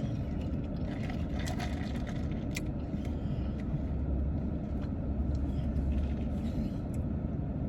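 Steady low rumble of a car running, heard from inside the cabin, with a few faint clicks.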